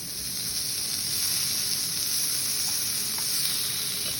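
Thin slices of yakiniku beef, beef tongue among them, sizzling steadily on a hot cooking surface, growing a little louder over the first second.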